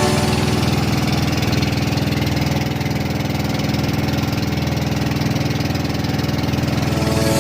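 A small engine running steadily at low, even speed.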